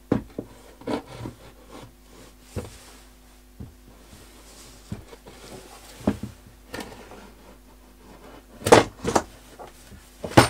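Wooden knocks and clunks of a router table being handled and fitted onto a Moxon vise: scattered separate knocks, with the loudest thumps close together near the end.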